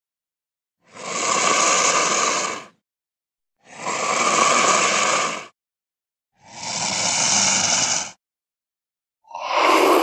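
Edited jaguar sound effects: three harsh, noisy bursts of about two seconds each, separated by about a second of dead silence, then a shorter burst beginning near the end.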